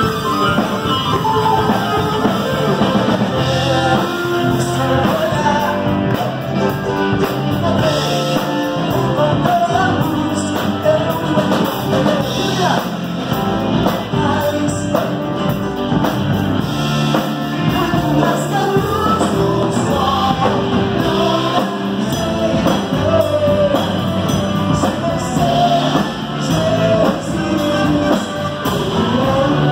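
Live band playing an upbeat rock-style song on electric guitar, electric bass, keyboard and drum kit, with a man singing lead through a microphone and backing singers joining in.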